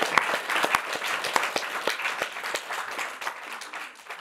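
Audience applauding, many hands clapping, dying away toward the end.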